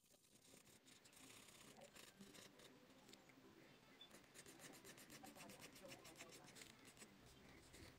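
Faint scratching of a mechanical pencil's lead on sketchbook paper as lines are shaded in, with a run of quick, closely repeated strokes in the second half.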